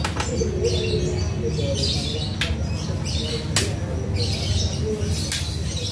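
Small birds chirping on and off over a steady low rumble, with a few sharp clicks.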